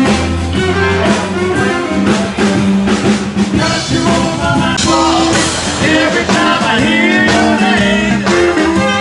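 Live band playing blues-style music with drum kit, guitar and a singer.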